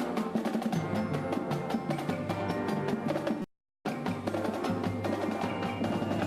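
Police band playing an up-tempo piece with busy, crisp percussion strokes over sustained band chords. Just past halfway the sound cuts out completely for a split second, then resumes.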